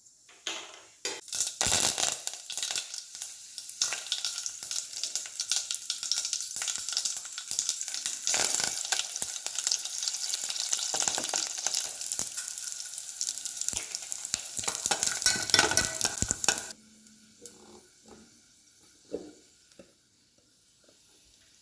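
Hot oil sizzling and crackling in a cooking pot while it is stirred, stopping suddenly about three quarters of the way through; a few light knocks follow.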